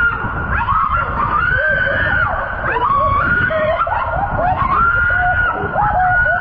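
High-pitched screaming: a run of long, drawn-out wailing cries that rise and fall in pitch.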